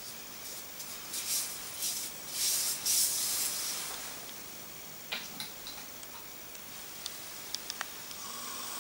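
Gloved hands rubbing and massaging cream into a bare foot: a soft rubbing hiss that swells in the first few seconds, then fades to quieter rubbing with a few light clicks.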